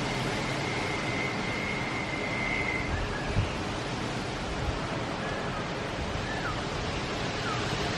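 Hurricane-force wind blowing steadily as a broad rushing noise, with a thin high whine over the first three seconds and a few short chirps later on. A single low thump comes about three and a half seconds in.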